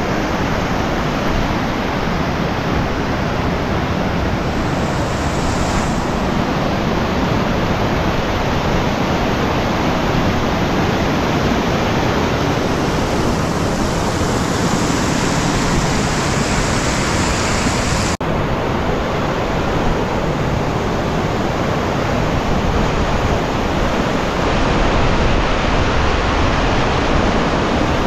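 Loud, steady rush of a mountain river.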